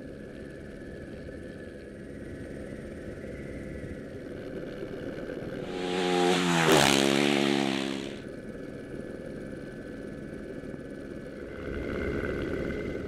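Rally motorcycle engine droning steadily, then a loud pass-by about six seconds in as a bike comes close and goes past, its pitch dropping as it passes. The engine drone settles back and swells slightly near the end.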